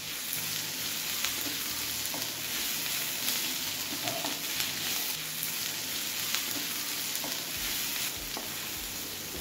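Sliced onions with garlic, green chillies and ground spices sizzling in hot oil in a nonstick pan as a wooden spatula stirs them. A steady frying hiss runs throughout, with light scattered ticks from the spatula.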